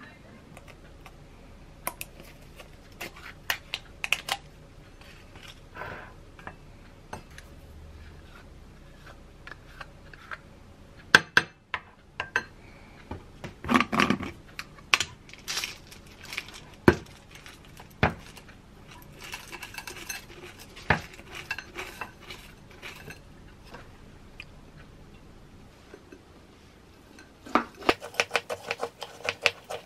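Scattered clinks and taps of a spoon, a glass bowl and a granola jar as a bowl of yogurt and granola is put together. Near the end come quick, repeated clinks of the spoon stirring granola into yogurt in the glass bowl.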